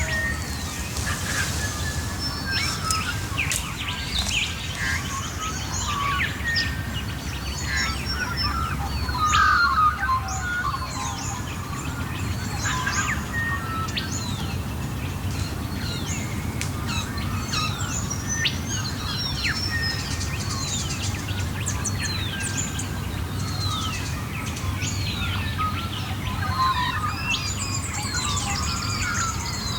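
Dawn chorus of many Australian birds singing at once: overlapping chirps and repeated falling whistles, with a dense high trill joining near the end, over a low steady rumble.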